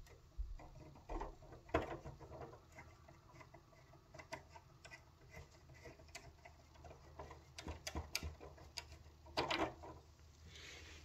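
Faint small clicks and ticks of a turntable headshell being unscrewed by hand and pulled off the tonearm, with a sharper click about two seconds in and a short burst of handling noise near the end.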